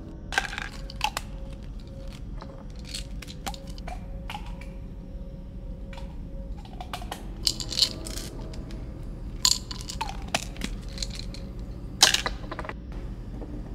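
Plastic prescription pill bottles being handled and set down on a countertop: a scattered series of sharp clicks and knocks from bottles and caps, the loudest a little before the end.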